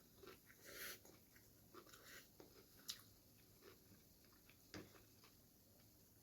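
Close-miked chewing of noodles: soft wet smacks and small clicks of the mouth, with a short noisier burst just before a second in and sharper clicks near three and five seconds.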